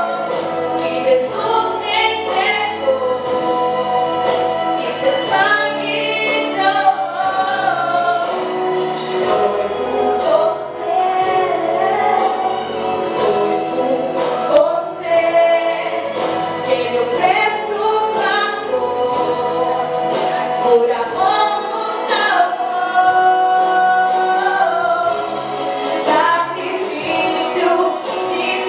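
A group of voices singing a Christian hymn together over instrumental accompaniment.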